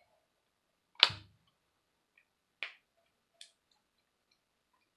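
A few sharp plastic clicks from the lid of a small pot of modelling clay being worked open by hand. The first, about a second in, is the loudest, with a dull knock under it; fainter clicks follow.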